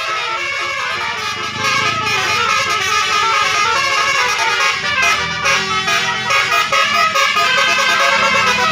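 Basuri musical air horn on a bus playing a telolet tune, a quick run of changing notes that gets louder about a second and a half in.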